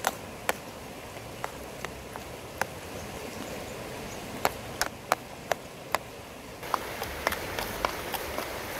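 Metal spoon tapping and scraping on a ceramic plate while roasted eggplant is spread out, as scattered sharp clinks. About two-thirds through, garlic sizzles in oil in a clay pot over a wood fire, with the spoon knocking against the pot in quicker taps.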